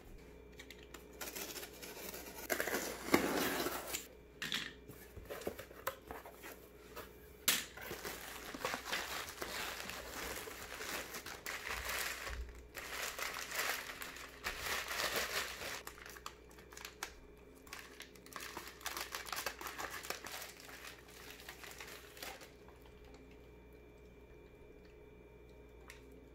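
Thin plastic packaging being handled and crinkled by hand, rustling in irregular bursts with a sharp snap about seven seconds in; the rustling stops near the end.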